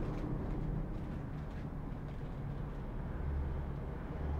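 Steady low hum and rumble of background noise, with a few faint clicks in the first second or two.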